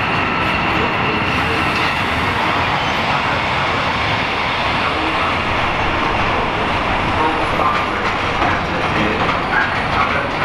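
Freight train wagons, a rake of steel-coil wagons, rolling steadily past close by: continuous loud wheel-on-rail noise with a slightly uneven rumble.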